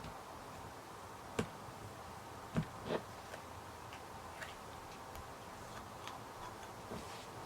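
A few soft clicks and taps from handling a small plastic slime container, over a faint steady hiss.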